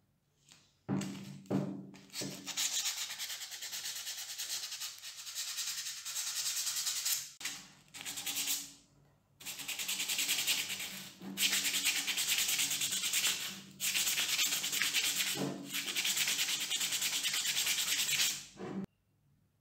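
Sandpaper rubbed by hand over the stem of an old copper-alloy candlestick in quick back-and-forth strokes. It starts suddenly about a second in, breaks off briefly a few times in the middle, and stops shortly before the end.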